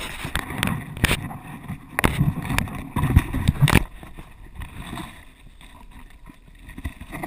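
Handling noise on an action camera's microphone as a hand holds a caught bass up against it: a run of knocks and rustles for about four seconds, then a quieter low rumble of wind and water.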